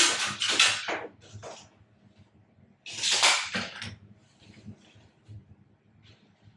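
Short scraping and rubbing handling noises, with three louder bursts in the first four seconds and fainter scuffs after.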